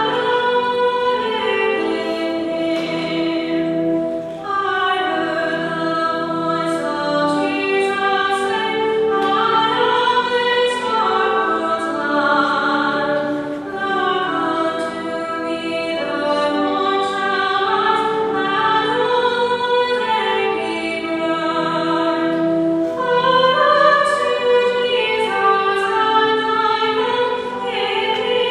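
Church hymn sung in slow, long held notes, music for the preparation of the gifts at Mass.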